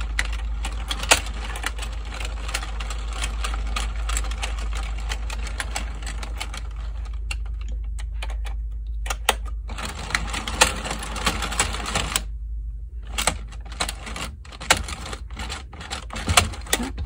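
Hand-cranked Addi Express 22-needle circular knitting machine turning while the knitted rows are taken out, its plastic needles riding the cam track in a rapid clatter of clicks. The clatter breaks off briefly about seven seconds in, stops about twelve seconds in, then gives way to a few scattered clicks.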